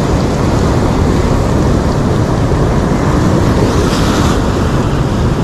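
Steady, deep rushing of wind buffeting the microphone, mixed with surf washing on the shore.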